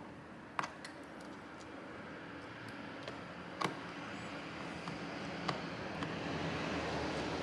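Small sharp clicks and taps of a precision screwdriver and tools on small screws and parts, two of them louder, about half a second and three and a half seconds in, over a steady low hum.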